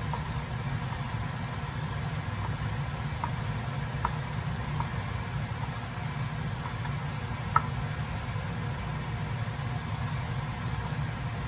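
Chef's knife chopping grilled beef into small cubes on a wooden cutting board: scattered sharp taps of the blade striking the board, the loudest about two-thirds of the way through. A steady low hum runs underneath.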